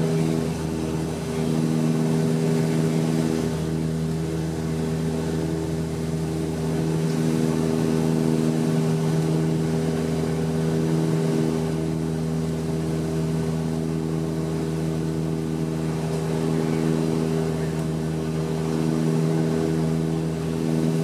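Cabin sound of a Bombardier Dash 8-100 turboprop's engine and propeller on final approach: a steady drone of several even propeller tones over a rushing noise.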